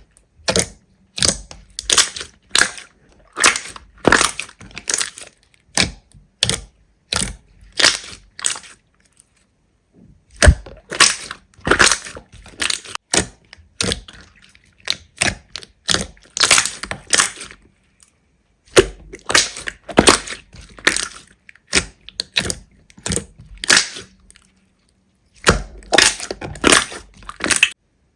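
Slime being squeezed and pressed by hand, making short crackly sounds in quick succession, about one or two a second, with a few brief pauses.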